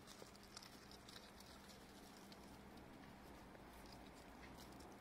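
Near silence: faint background with a weak steady hum and a few scattered soft ticks.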